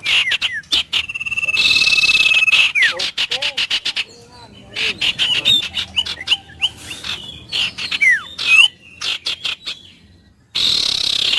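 Wild birds calling: whistled trills and quick notes that slide downward, over a dense rapid clicking chorus. The calls thin out in the middle, nearly stop about ten seconds in, then start again abruptly.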